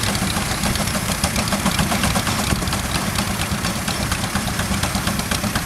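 J.I. Case steam traction engine working under load as it pulls a subsoil plow. Its exhaust beats in a rapid, even chuff over a low mechanical rumble.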